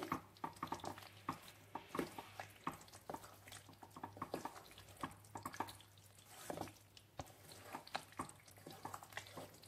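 Faint stirring of boiled pasta through thick white sauce in a pan: irregular soft wet squelches and light taps as the spoon turns it.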